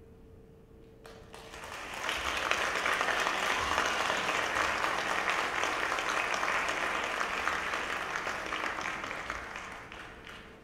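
Audience applauding, starting about a second in as the band's last held note dies away, swelling quickly and tapering off near the end.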